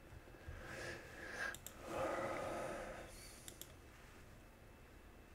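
Faint computer mouse clicks: one about a second and a half in and a quick pair around three and a half seconds. A soft noise swells and fades over the first three seconds.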